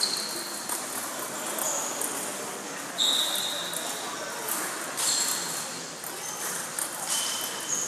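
Table tennis balls clicking off tables and paddles at irregular intervals from several rallies in a large, echoing hall, some hits leaving a short high ring, over a background murmur of voices.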